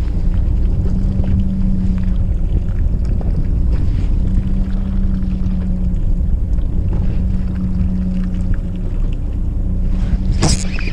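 Fishing boat's engine running steadily, a low drone with a constant hum. About ten seconds in, a short scraping noise as a gloved hand brushes over the camera.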